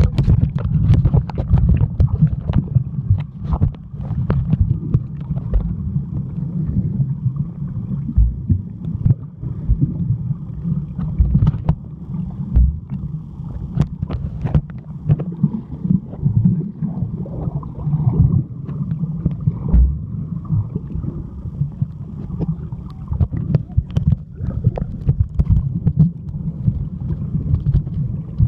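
Muffled underwater noise recorded by a camera in a waterproof housing: a steady deep rumble with many scattered clicks and knocks.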